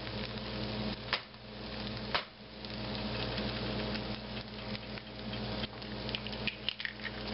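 Leftover breakfast-bowl hash of egg, meat, potatoes and refried beans sizzling in a hot non-stick frying pan, with two sharp taps about one and two seconds in as an egg is cracked over the pan.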